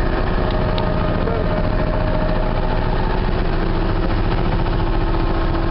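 Engine of a small wooden fishing boat running steadily under way, a loud, even low drone with a faint steady whine over it.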